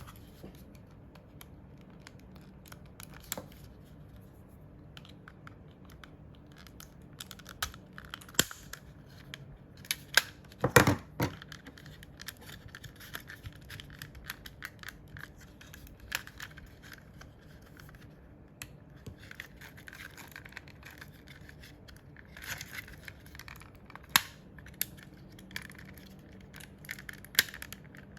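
Small hand-work noises from taking apart or working on a computer mouse: scattered sharp clicks, scrapes and plastic handling sounds, with a louder clatter about ten seconds in.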